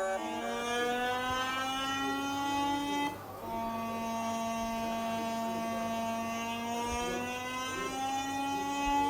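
Electronic emergency alert alarm tone: a buzzy tone that slides slowly upward in pitch, cuts off briefly about three seconds in, returns lower and holds steady, then slides upward again near the end.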